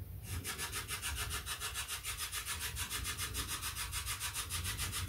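Spirit box radio scanner sweeping through stations, a hiss of static chopped into rapid, even pulses several times a second, with no words coming through.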